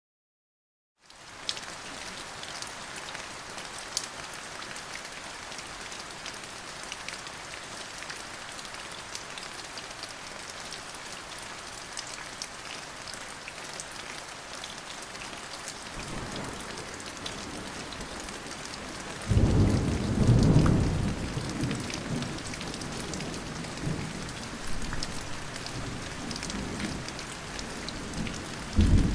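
Steady rain falling, with scattered individual drop ticks. About sixteen seconds in, low thunder begins to rumble, swelling into a loud peal a few seconds later that slowly dies away, and a fresh rumble of thunder breaks near the end.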